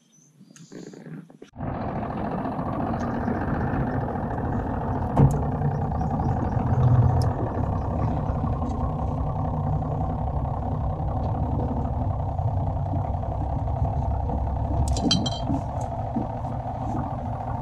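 Small tiller-steered outboard motor on a jon boat, running at a steady speed. It comes in abruptly about a second and a half in, with a few faint clicks over it.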